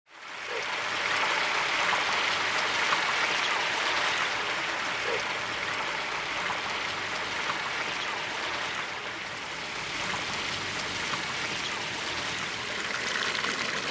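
Water running steadily through a garden pond's rocky stream and waterfall, fading in at the very start.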